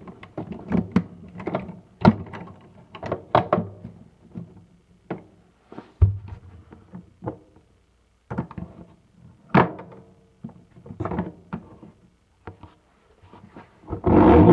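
Irregular knocks, thuds and clatter of toys and objects being handled and shifted about, with short pauses between bursts.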